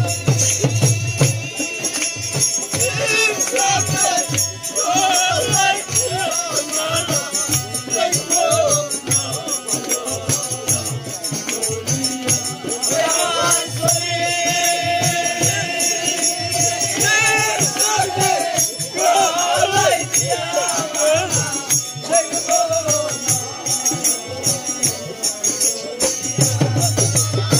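Live Bengali baul folk song: men singing to a harmonium, a two-headed barrel drum and jingling hand percussion keeping a quick steady rhythm. The drum beat is heaviest at the start and again near the end.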